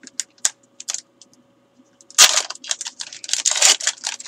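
A few light clicks and taps, then, about two seconds in, the crinkly foil wrapper of a football card pack crackling and tearing as it is pulled open.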